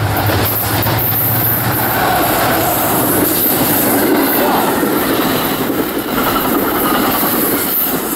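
New Jersey Transit diesel-hauled commuter train of bilevel coaches passing close by at speed: a steady loud rush of wheels on the rails that builds as it arrives and eases slightly near the end.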